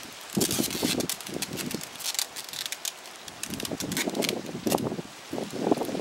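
Dry grass and brush stalks crackling and snapping as they are handled. A quick run of sharp snaps comes in the first couple of seconds, then a longer stretch of rustling.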